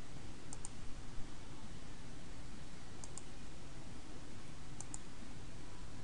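Computer mouse button clicking: three quick double clicks spread over several seconds, over a steady low hiss of background noise.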